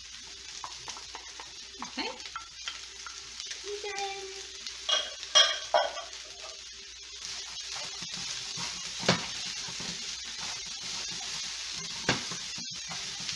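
Vegetable fried rice sizzling in a frying pan over high heat while it is stirred and tossed with two wooden spatulas. There are scrapes and short knocks of wood against the pan, with a sharp knock about nine seconds in and another near the end.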